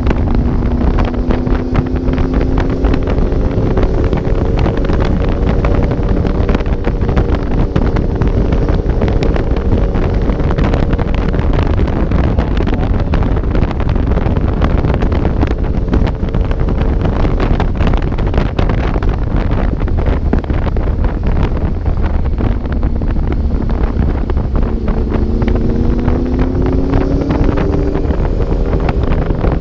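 Motorcycle engine running while riding, under heavy wind noise on the microphone. The engine's pitch climbs over the first few seconds and climbs again in the last few seconds as the bike accelerates.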